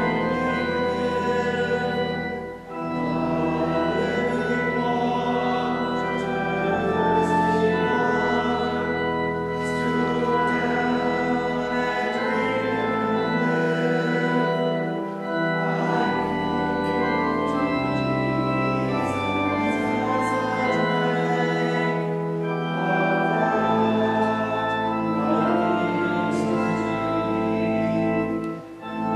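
Church organ playing slow, sustained chords in phrases, with brief breaks between phrases about two and a half seconds in and near the end.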